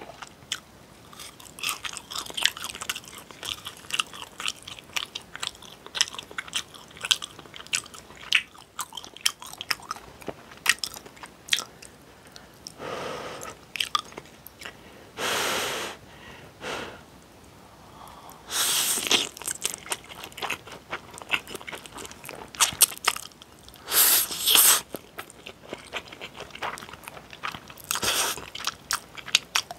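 Close-miked eating: wet chewing with many small crunchy clicks, then several long slurps of spicy stir-fried instant noodles in the second half, with chewing between them.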